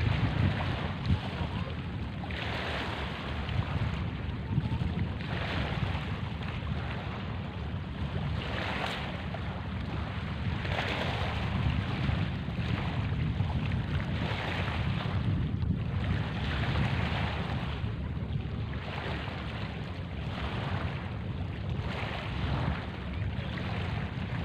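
Wind buffeting the microphone in a steady low rumble, over small waves washing onto the sand every second or two at the water's edge.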